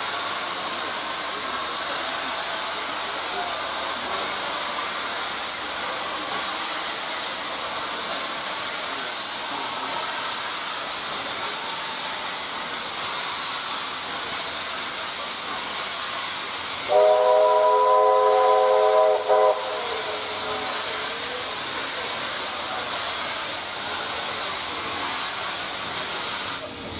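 NSW AD60 class Garratt steam locomotive 6029 heard from a carriage behind it, a steady hiss of steam and rushing air. About 17 s in its steam whistle sounds loudly for about two and a half seconds, followed by a brief second toot.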